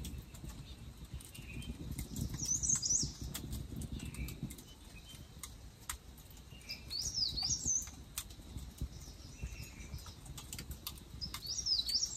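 A songbird singing three short, high, twittering phrases, about a few seconds apart, over the scattered crackle of a small wood campfire and a low steady rumble.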